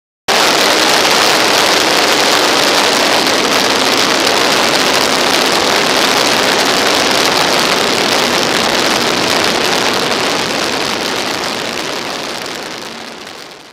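Onboard-camera audio of a 2 m Stick RC airplane in flight: the OS AX155 engine running inside a loud, even rush of wind noise. It cuts in abruptly and fades out over the last couple of seconds.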